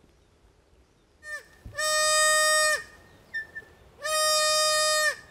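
A hand-blown reed call for small forest antelope, blown twice as two long, steady bleats about a second long, each ending with a drop in pitch. It imitates an animal in distress to call in suni or duiker.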